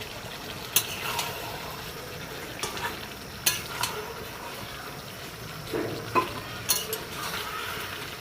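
Chicken pieces and spices frying and sizzling in oil in a kadai while being stirred, with a spatula scraping and knocking against the pan several times. This is the kosha stage of a chicken curry, the meat being stir-fried dry with ground spices.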